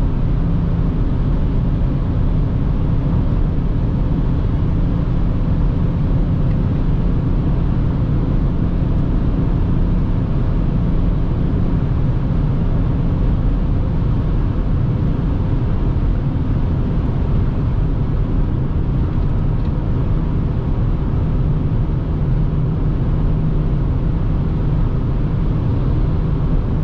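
Steady in-cabin drone of a BMW X5 E70 30d (245 PS inline-six diesel) cruising at high speed on the motorway, with engine hum blended into road and wind noise.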